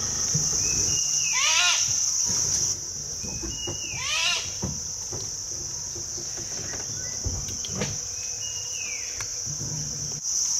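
High, steady drone of forest insects, which drops out about a quarter of the way in and returns at the very end. A bird call with quick downward-sweeping notes sounds twice, about two and a half seconds apart, and a few faint low knocks come near the middle.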